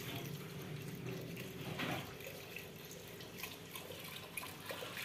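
Milk poured from a carton in a steady thin stream, splashing into the liquid in an aluminium pressure cooker pot.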